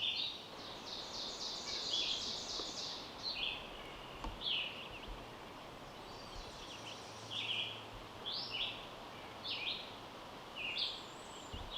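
Wild songbirds singing: short high chirps come again and again throughout, with a fast run of quick notes about a second in.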